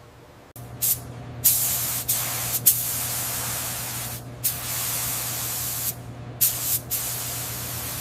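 Compressed-air spray hissing in loud bursts. It starts about half a second in and cuts off briefly several times, over a steady low hum.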